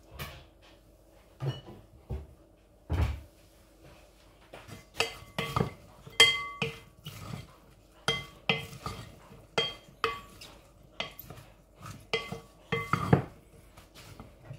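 Wooden spoon tossing chopped salad in a glass mixing bowl: the spoon knocks against the glass, each knock ringing briefly. A few scattered knocks at first, then quicker, more frequent knocks from about five seconds in.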